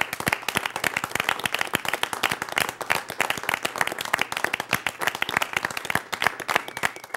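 A small group of about a dozen people applauding, hand claps overlapping in a dense, steady patter.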